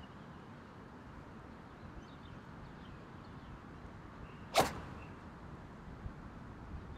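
A golf iron striking the ball on a low punch shot: one sharp crack about four and a half seconds in, ringing out briefly.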